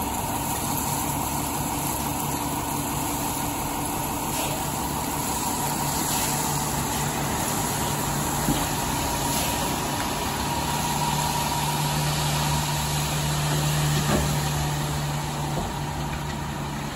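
Dump truck's engine running steadily with a faint steady whine, louder for a few seconds in the second half, while its raised bed tips a load of gravel that slides out onto the road.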